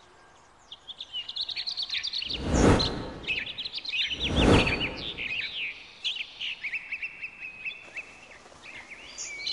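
Songbirds chirping and trilling in quick, overlapping calls, with two short bursts of rushing noise, about two and a half and four and a half seconds in, that are louder than the birds.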